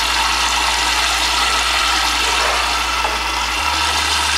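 Water rushing steadily into a front-loading washing machine through its detergent drawer as the machine fills at the start of a cotton wash.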